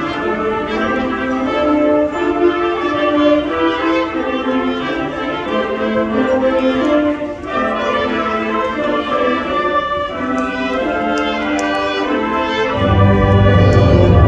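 School wind ensemble playing a slow piece: trumpets and other brass over held chords. The low instruments come in loudly near the end.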